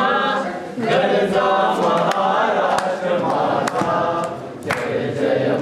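Three young people singing together in unison without instruments, with a few hand claps.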